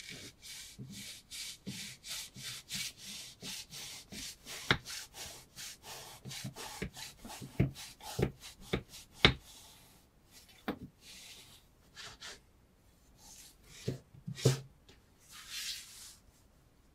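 Chef knife blade sawing back and forth through a strip of material clamped in a wooden jig, about three strokes a second, with a few sharp clicks. After about ten seconds the strokes stop, giving way to scattered scraping and rustling as the material and jig are handled.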